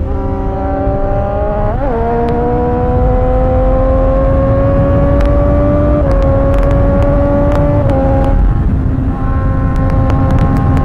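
Sport motorcycle engine running hard at highway speed, its pitch climbing slowly, with a quick blip about two seconds in and drops in pitch at about six and eight seconds in. Heavy wind rush on the microphone underneath.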